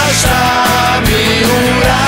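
A rock song playing loud, with a held melody line over a steady beat.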